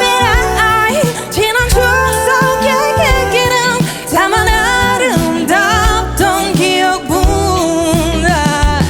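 A pop ballad cover, with band backing and voices holding long, wavering notes and singing runs without clear words.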